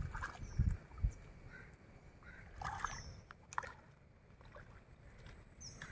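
Shallow pond water sloshing and splashing as it is worked by hand, with a few dull thumps in the first second and short splashy bursts about three seconds in.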